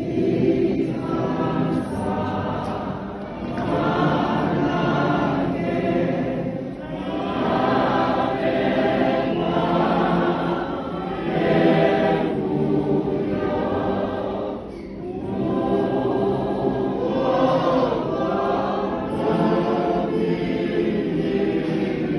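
A church congregation of many voices singing a hymn together in long sustained phrases, with brief dips between phrases about seven and fifteen seconds in.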